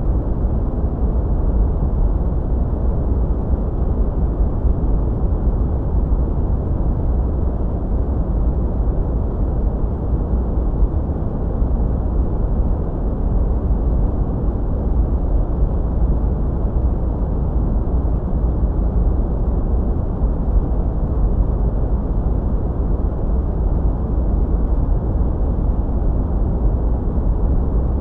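Steady sleep-aid noise, deep and muffled, with most of its energy low and almost nothing high, never changing.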